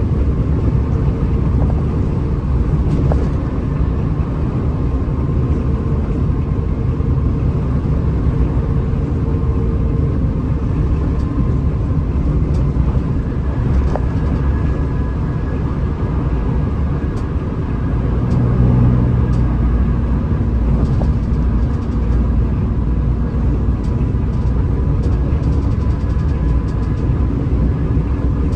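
Hino RM 280 bus under way: a steady low diesel engine and road rumble with a faint steady whine above it. The low rumble swells briefly about two-thirds of the way through.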